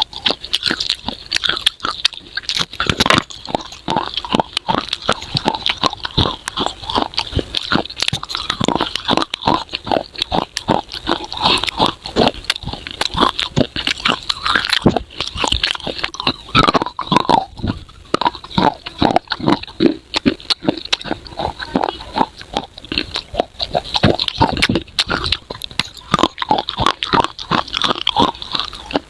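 Close-miked biting and chewing of baked edible clay, with dense crisp crackling crunches throughout.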